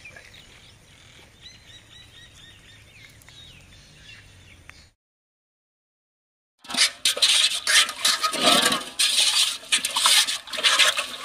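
Faint bird chirps over a quiet outdoor background. After a brief dropout comes a loud run of metallic clattering and scraping from a large aluminium cooking pot being handled and scrubbed by hand.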